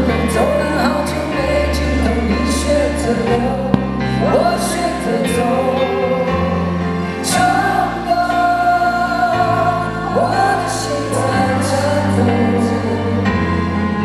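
Live band music: a sung melody over keyboard, electric guitar, bass and cymbals, with held bass notes that change every second or two.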